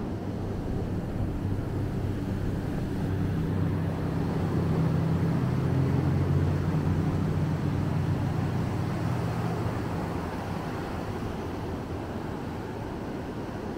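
A passing engine's low, steady hum swells to its loudest a few seconds in and then fades away, over the constant wash of ocean surf.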